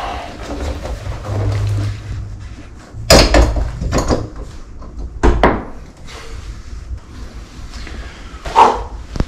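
Four separate knocks and bangs a second or more apart, over a low hum.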